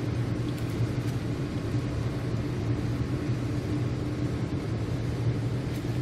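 A steady low hum throughout, with faint scattered crunches of a cat chewing dry kibble from a metal plate.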